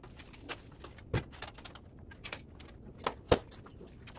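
Metal backdrop-frame poles knocking and clinking against each other as they are handled and fitted together: a handful of sharp clanks, the loudest about a second in and just past three seconds.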